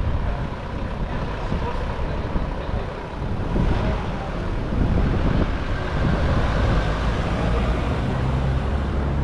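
A car engine running with a low rumble; in the second half it settles into a steady, even note.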